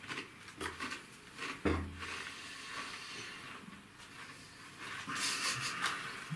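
Cucumber-flavoured potato crisps being handled and eaten: a few sharp clicks and a dull thump in the first two seconds, then crackly crunching near the end.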